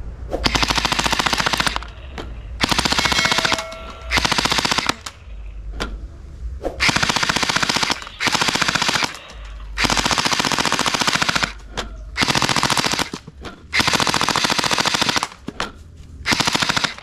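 Toy AK-47 gun firing its electronic machine-gun sound effect in repeated bursts of rapid shots, each burst lasting a second or two, with short pauses between them.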